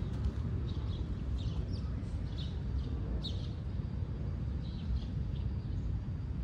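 Short high chirps, about one or two a second at irregular intervals, over a steady low rumble.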